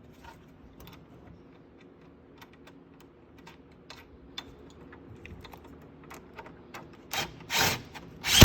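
Small, scattered metal clicks and taps as a nut and bolt are handled and threaded by hand onto the ATV's rear rack. Near the end come three short, loud bursts of noise.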